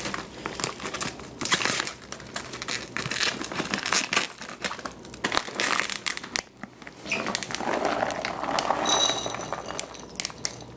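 Crinkling of a plastic bag of dry cat food as it is handled and shaken, with a denser rush near the end as kibble pours from the bag into a dish.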